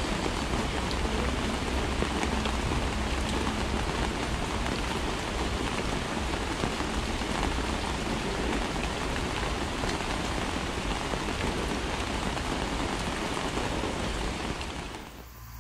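Steady rain falling, with scattered single drops standing out; it fades out just before the end.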